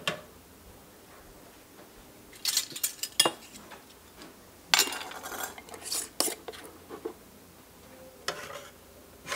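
Glass half-pint canning jars and metal canning lids and bands clinking and clattering as they are handled, in several short clusters of clicks with quiet gaps between.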